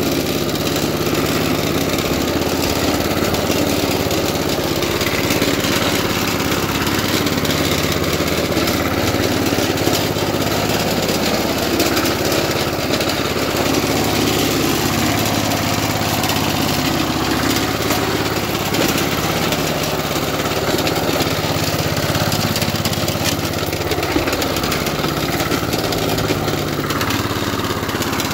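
1976 Rover Prince 19 rotary lawn mower's small petrol engine running steadily.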